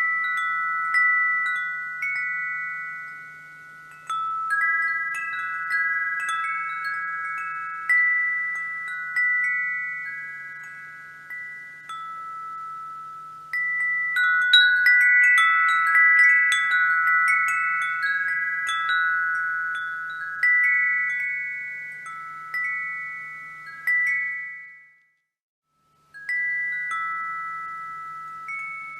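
Wind chimes ringing, several pitched tones struck at irregular moments and each dying away slowly, over a faint steady low hum. About 25 seconds in, the sound cuts out for roughly a second before the chiming starts again.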